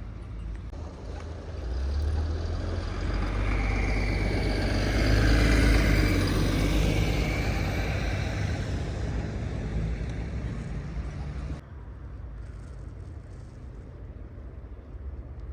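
A car drives past, its engine and tyre noise building to loudest about six seconds in and then fading away. The sound drops off suddenly about three quarters of the way through.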